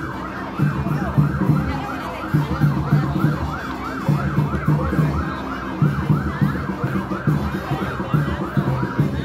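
Electronic vehicle siren sounding in a fast yelp, quick rising sweeps about three a second, cutting off near the end, over band music with a steady beat.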